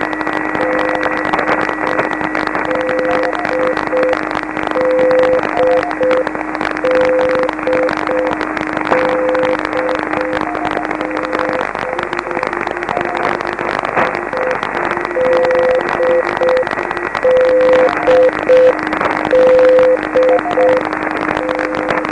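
Several Morse code beacons keyed at once on 7039 kHz shortwave, heard through a receiver in CW mode: overlapping beeps at different pitches over a steady hiss of band noise. The lowest tone holds steady, breaks into keyed dashes about halfway through, then goes back to a steady tone.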